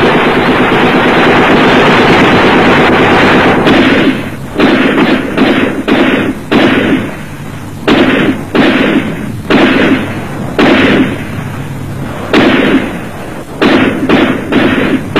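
Battle gunfire on an old, narrow-band soundtrack: a dense, continuous noise for the first few seconds, then from about four seconds in a run of separate shots or blasts, one every half-second to a second, each with a trailing echo.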